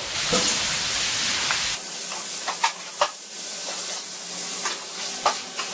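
A large batch of diced smoked lardons sizzling in a big stainless-steel pan, frying in the fat they give off, with no oil added. A few sharp knocks or scrapes on the metal come through the steady sizzle from about two seconds in, as the lardons are stirred.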